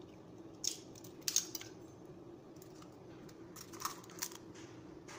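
Eggshell clicking and crackling as a cracked egg is pulled open over a bowl. A cluster of short clicks comes about a second in and another near four seconds in.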